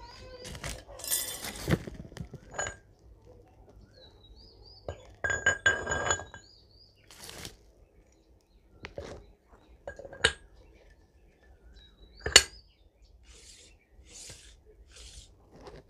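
Steel gear parts of a tractor differential clinking and knocking together as the crown wheel, bevel pinions and thrust washer are handled and fitted by hand. The clinks come in short, scattered runs, some ringing briefly, with a cluster about five to six seconds in and the sharpest single strike about twelve seconds in.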